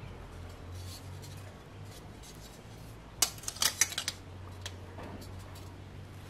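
A measuring tape being handled against a water pump's steel stand: a quick cluster of clicks and scrapes a little past three seconds in, then a couple of single ticks, over a low steady hum.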